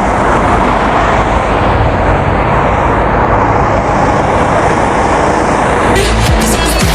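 Steady engine and road noise inside a moving bus. About six seconds in it cuts to loud electronic background music with a beat.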